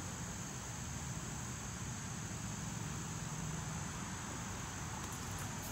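Steady outdoor background noise: an even low hiss with a continuous high-pitched band and a faint low hum, with no distinct events.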